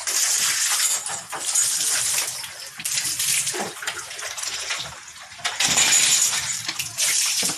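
Water splashing onto pigs in repeated bursts of a second or so each, as the pigs are doused to cool them off in the heat.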